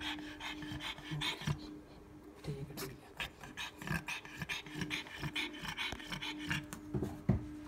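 Pregnant pug panting rapidly and raggedly with her tongue out, the heavy breathing of a dog in labour. A steady low hum runs underneath.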